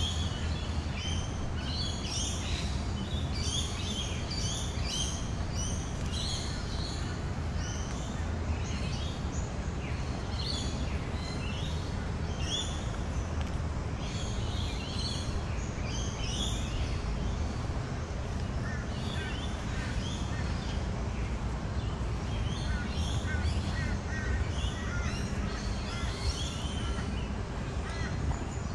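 Many birds calling with short, high, chattering calls that thin out after about seventeen seconds, over a steady low hum of background noise.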